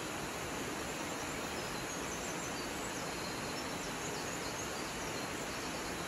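Steady rush of a waterfall falling over a rock face into a plunge pool. A few faint, short high chirps between about two and five seconds in.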